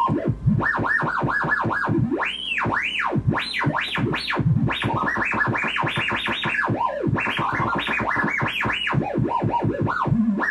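A gyroscope-controlled sound generator playing trippy electronic tones through an amplified speaker. Its two LTC6990 voltage-controlled oscillators are mixed by an XOR gate. The pitch swoops up and down in quick arches, several a second.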